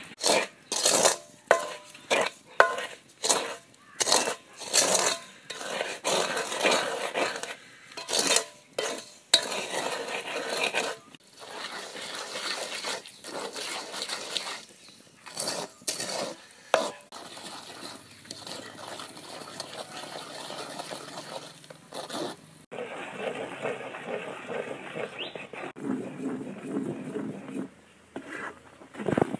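A flat spatula scraping and stirring in a cast-iron wok, as rice flour is cooked into a thick, sticky kalu dodol paste. It starts as sharp scraping strokes about two a second, then becomes denser and steadier.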